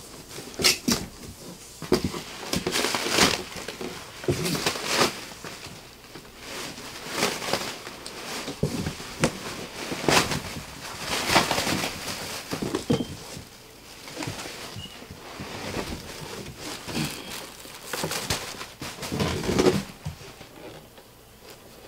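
Irregular clicks, knocks and rustling of things being handled, spread unevenly through the stretch.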